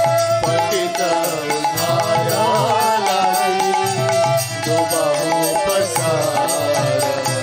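Instrumental break in a Vaishnava devotional song: a melody line with bending, ornamented notes played over a steady drum beat.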